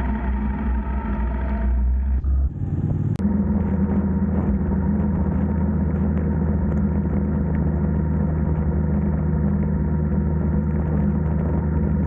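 A motor vehicle's engine runs steadily under way. Its note changes abruptly about two and a half seconds in, a sharp click follows just after three seconds, and then it settles into a steady, deeper drone.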